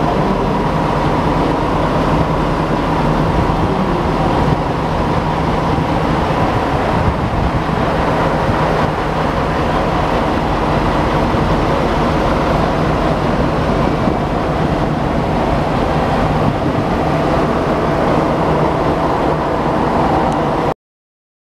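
KiHa 47–based diesel railcar standing at the platform with its engine idling: a steady machinery rumble with a constant hum. It cuts off suddenly near the end.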